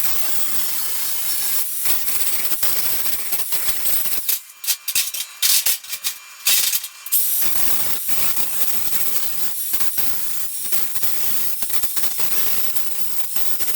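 Welding arc crackling and hissing while a seam on the steel sled frame is welded: a long run of bead, then a stretch of short stop-start bursts, then another long run.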